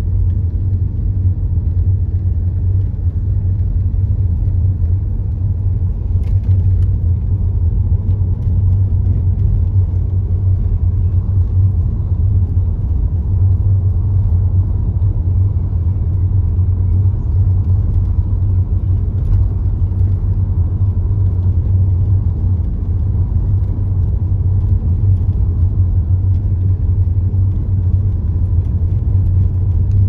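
Car driving at a steady speed, heard from inside the cabin: a steady low rumble of road and engine noise.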